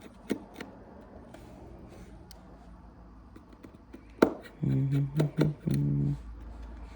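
Small tool clicks and taps on a phone's internal parts during the home-button removal on an iPhone 6S, with one sharper click about four seconds in. A few short hummed or mumbled voice sounds follow.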